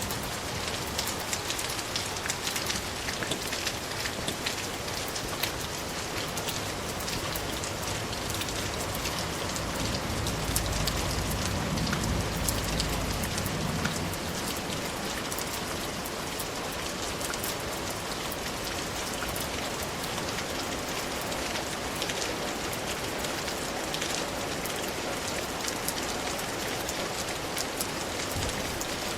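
Steady rain falling, a constant hiss with many close individual drops ticking on a surface. A low rumble swells briefly about ten seconds in and fades by about fourteen seconds.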